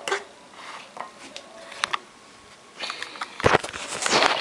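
Plastic fork scraping and clicking against a plastic plate while chopping worms. Near the end, loud bumps and rubbing as the camera is handled and moved.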